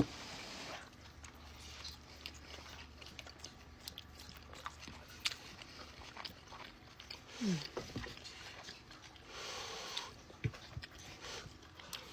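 Close-up eating sounds: chewing and biting, with scattered light clicks and taps.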